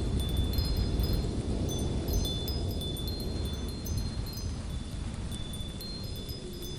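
Light wind blowing as a steady low rumble, with high, short ringing tones scattered throughout.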